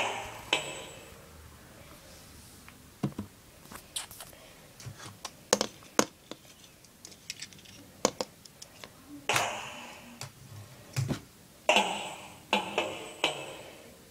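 Paper Jamz toy drum kit sounding electronic drum hits through its small speaker as a cat's paws strike the pads: scattered, irregular hits with uneven gaps, a few ringing out longer, in a cluster near the end.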